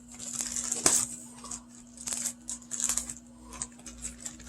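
Packaging being handled and torn open: irregular crinkling and tearing, with a sharp click about a second in. A steady low electrical hum runs underneath.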